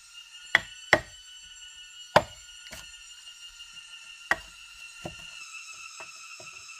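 Wood being chopped by hand with a blade: about six sharp blows at irregular spacing, with lighter taps near the end.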